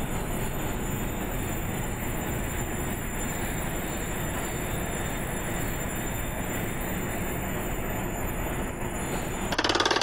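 Steady din of ship's engine-room machinery running, with faint high whines over it. Near the end it gives way to a fast, rhythmic buzzing.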